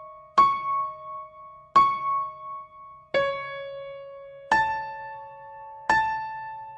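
Soundtrack music: slow piano notes, five struck about every second and a half, each ringing out and fading.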